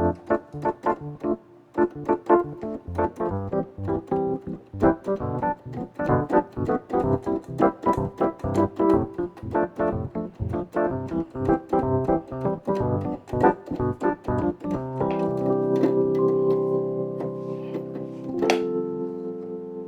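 Electric piano patch from Yamaha's Montage M softsynth plugin playing a chord progression: quick repeated chords for most of the time, then held chords near the end.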